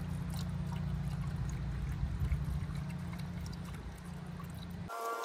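Coolant pouring steadily from a gallon jug through a funnel into a car radiator. Near the end it cuts off suddenly and a steady high hum takes over.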